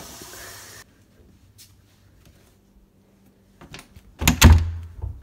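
A hiss of running tap water cuts off sharply about a second in. After a quiet stretch, a few loud knocks and thumps on a bathroom door come near the end.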